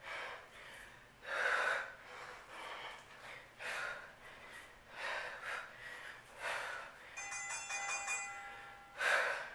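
A woman breathing hard during dumbbell squat-to-deadlifts, a sharp exhaled breath about once a second. A short electronic tone sounds for about a second and a half, around seven seconds in.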